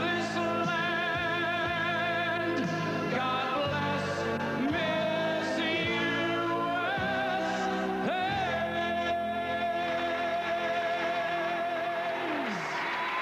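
Live country ballad with band accompaniment and singing, its notes held with vibrato. A long held note runs through the second half and trails off near the end, as applause begins.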